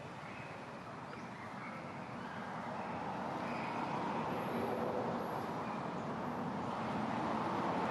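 Outdoor background noise: a steady rushing sound that swells about two to three seconds in, with a few faint short high calls.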